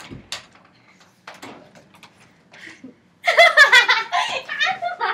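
A few soft clicks and breaths, then about three seconds in a girl breaks into loud, high-pitched laughter.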